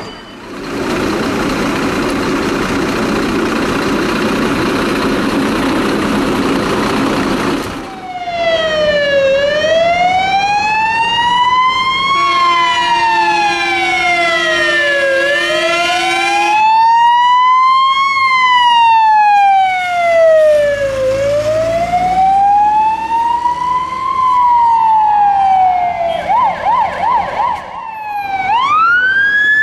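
Emergency-vehicle sirens on moving fire engines: after a loud rushing noise for about the first eight seconds, a siren wails slowly up and down, each rise and fall taking about three seconds. A steady horn tone joins for a few seconds in the middle, the siren switches to a fast warbling yelp near the end, and a new wail starts rising at the very end.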